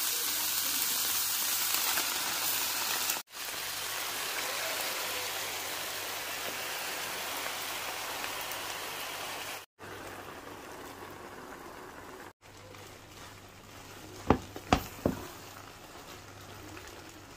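Rice noodles and sauce sizzling in a hot frying pan, a steady hiss that cuts off abruptly a few times and grows quieter in the later stretches. A few sharp knocks of a wooden spatula against the pan come about 14 to 15 seconds in.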